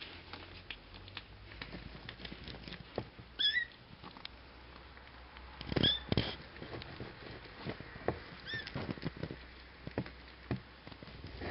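Nursing Bengal and Cashmere kittens, nearly three weeks old, giving three brief high squeaky mews, the middle one loudest, over a steady patter of soft clicks and rustling as they suckle and shuffle on the blanket.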